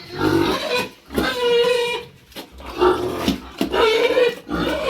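Pigs squealing: four drawn-out, high calls of about a second each, one after another.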